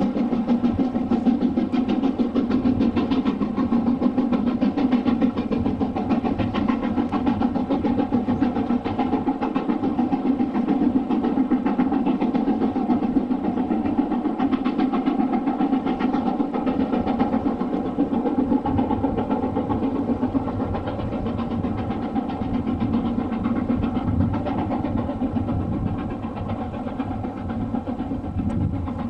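LMS Black 5 steam locomotive working steadily along the line, its exhaust beats coming in a rapid, even rhythm. The level eases slightly near the end.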